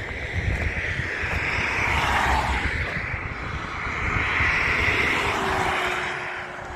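A motor vehicle goes past, its noise rising and fading twice, with a faint engine tone dropping in pitch as it passes. Wind buffets the microphone with an uneven low rumble.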